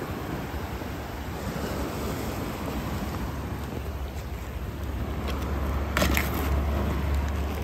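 Small waves washing over a rocky shore, with wind rumbling on the microphone that grows heavier in the last few seconds. A couple of sharp clicks come about six seconds in.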